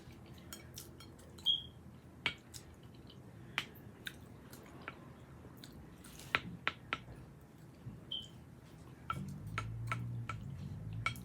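Close-up chewing of tuna salad and crackers, with scattered wet mouth clicks and smacks. A low hum comes in about nine seconds in.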